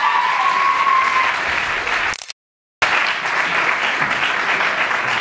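Audience applauding steadily. The sound cuts out completely for about half a second a little past two seconds in.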